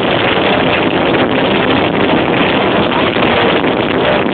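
Live heavy metal band with distorted electric guitar, recorded on an overloaded microphone, so that it comes through as a loud, steady wall of distorted noise.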